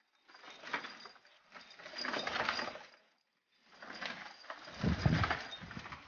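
Pigeons scuffling and flapping their wings in a loft: rapid rattling wingbeats in three bursts of about a second each, with short pauses between.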